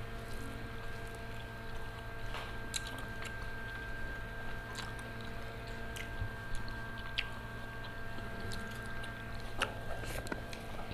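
Eating sounds of two people chewing grilled chicken and rice eaten by hand, with scattered small clicks and smacks, over a steady background hum.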